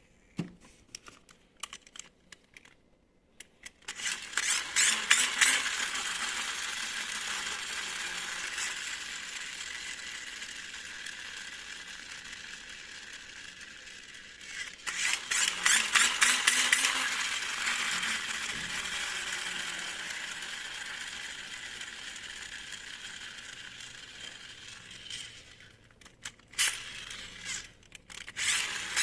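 Small radio-controlled toy car running twice, each run starting with a loud rattly burst and then fading as the car moves off, with scattered clicks before, between and after.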